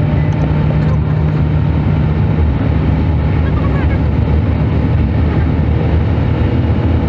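Steady drone of a car on the move: engine and road noise with a strong low hum.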